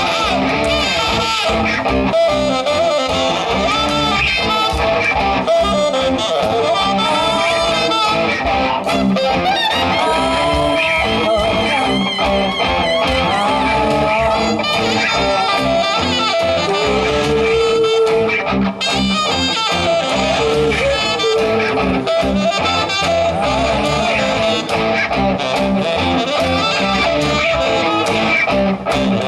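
Rock band playing live: an instrumental passage with no vocals, led by a guitar melody over the full band.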